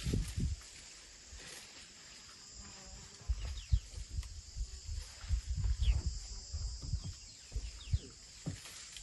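African elephant browsing in a bush: rustling leaves and cracking twigs as it pulls at and feeds on the branches, in irregular bursts from about three seconds in. A steady high insect drone runs underneath.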